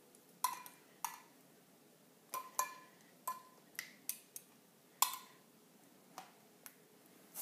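Light, irregular clicks and clinks of kitchenware, about a dozen, some with a short metallic ring, as breaded chicken pieces are handled and set on a wire cooling rack over a sheet pan.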